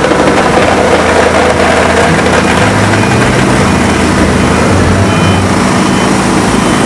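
A Cleveland Vibrator 1350 VMSAC air-cushioned piston vibrator drives the steel tray of an RFM volumetric vibratory feeder, running with a loud, steady rattle. Steel bolts chatter along the tray and drop into a plastic bin.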